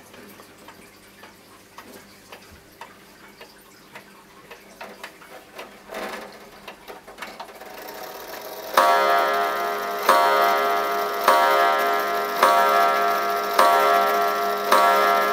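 Antique Jerome & Co. New Haven wall clock ticking faintly, with a brief handling noise about six seconds in. Then, from about nine seconds in, its striking train sounds loud ringing blows about 1.2 seconds apart, six of them, and they go on.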